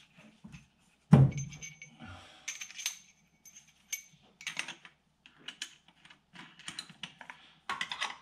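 Metal clutch alignment tool pieces being handled against the clutch disc and flywheel: a loud knock about a second in, then scattered light metallic clicks and clinks with brief ringing.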